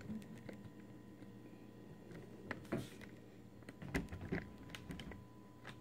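Faint handling noise as a phone camera is moved and repositioned: a few scattered light clicks and knocks over a steady low hum.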